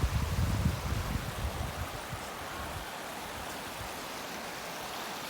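River water rushing steadily below a footbridge, an even hiss of flowing water. Low rumbling buffets hit the microphone during the first two seconds.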